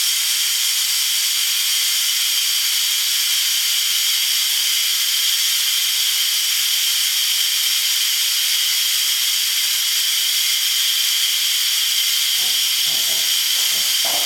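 PRO 1200 pneumatic motorcycle lift venting air through its release valve as it lowers under a heavy load: a steady, loud hiss.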